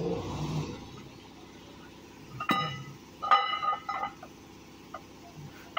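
Steel camshaft with its timing gear being handled at a truck engine block: a scraping rustle at first, then several sharp metallic clinks that ring briefly as metal parts knock together.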